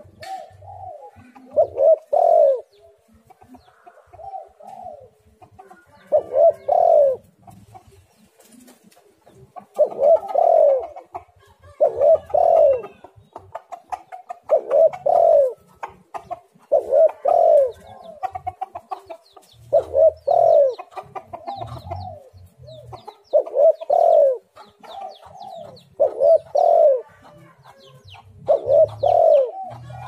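Spotted dove cooing over and over in its repeated phrase: low coo notes, the loudest coming in clusters of two or three every couple of seconds, with softer notes between.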